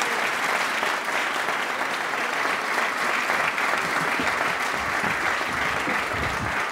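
A large studio audience applauding steadily.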